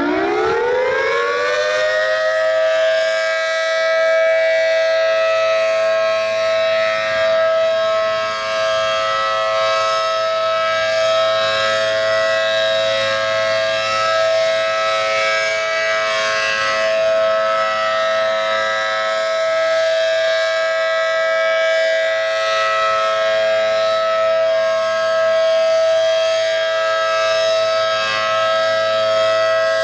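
ACA Allertor 125 outdoor warning siren with a 10/12 port rotor, running on test: its pitch finishes winding up about two seconds in, then it holds a steady two-note chord at full speed.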